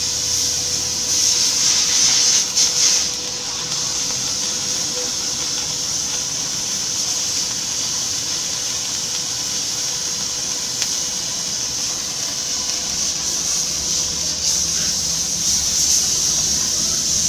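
Steady high hiss of compressed air, swelling louder about a second in and again near the end, with a faint steady tone underneath.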